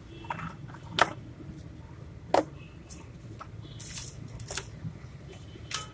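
A cardboard hair-trimmer box and trimmer being handled: about four sharp knocks and clicks spread out, with a short rustle of packaging about four seconds in.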